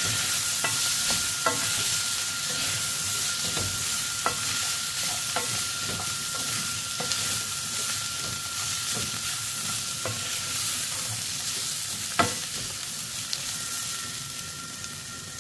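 Diced chicken sizzling as it fries in a metal frying pan, its own liquid already cooked off, while a wooden spoon stirs and scrapes it with scattered knocks against the pan, the loudest about twelve seconds in. The stirring stops near the end and the sizzle goes quieter.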